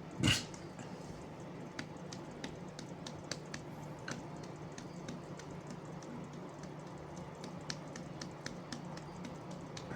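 One sharp slap-like hit about a third of a second in, followed by faint, irregular light taps and clicks.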